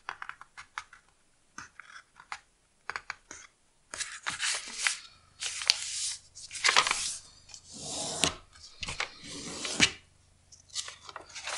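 A sheet of printer paper being folded in half on a cutting mat and pressed flat by hand: paper rustling and crinkling, with a few small taps and crackles at first, then several longer swishes as the palms slide along the fold to crease it.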